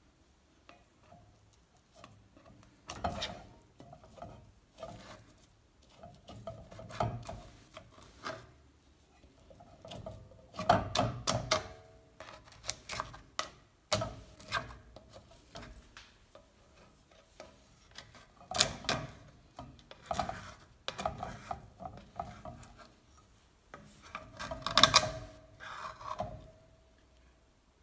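A spoon scraping dried cream off the sides of a steel pot and stirring it into thickened milk: irregular scrapes with light knocks against the metal, a few strokes louder than the rest.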